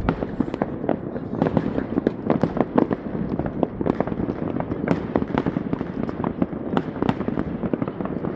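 Fireworks going off in rapid succession: a dense, continuous run of bangs and crackles, several a second and overlapping, with no break.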